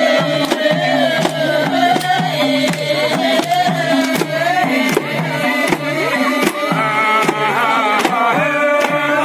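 Jhyaure folk song: voices singing a held, wavering melody over a madal hand drum beating a steady repeating rhythm, about two strokes a second.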